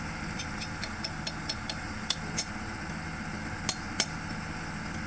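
Old Sumitomo excavator's diesel engine running steadily, with sharp clicks and knocks over it: a quick run of light clicks in the first two seconds, then louder single knocks about two and four seconds in.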